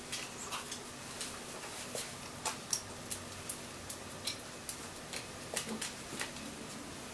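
A Staffordshire bull terrier's claws clicking and tapping on a tiled floor as she steps and turns, in irregular light ticks with a small cluster near the end.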